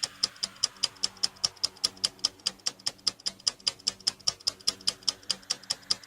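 Countdown-timer clock ticking: a steady, even tick-tock of sharp clicks, several a second.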